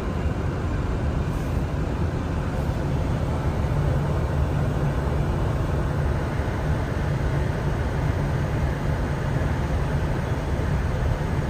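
Steady flight-deck noise inside a Boeing 747: a low rumble with a rushing-air hiss over it, unchanging throughout.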